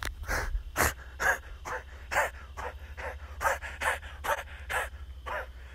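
A person panting quickly and heavily close to the microphone, about two breaths a second.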